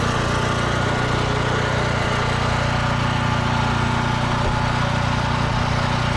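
Portable generator's small engine running at a steady speed, with no change in pitch.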